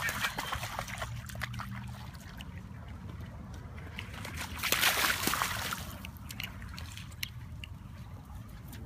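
Huskies running through shallow standing water, their paws sloshing and splashing, with a louder burst of splashing about halfway through.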